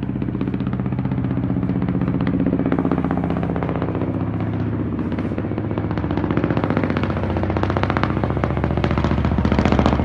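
Firefighting helicopter flying overhead: rapid, even rotor-blade chopping over a steady engine note, getting slightly louder toward the end.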